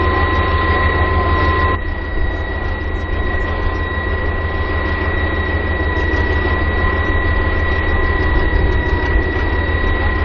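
Heavy armoured tracked vehicle engines running at idle: a steady low drone with a high, even whine on top. The sound dips a little about two seconds in.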